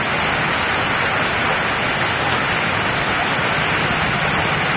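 Heavy rain pouring steadily onto a wet street, an even, unbroken hiss.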